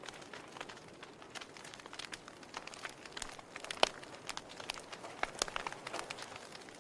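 Wood fire in a fireplace crackling: irregular sharp pops and snaps over a soft hiss, with one louder pop just past halfway.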